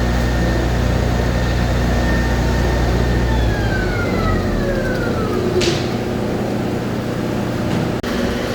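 Three-phase electric motor of an Alimat 160 industrial meat grinder running with a steady hum, then switched off about three and a half seconds in and coasting down with a falling whine. A short sharp click comes about halfway through.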